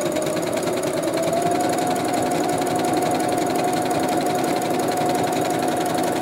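Electric sewing machine running steadily while zigzag stitching, its motor whine under a rapid, even clatter of needle strokes. The whine rises slightly about a second in as the machine speeds up a little.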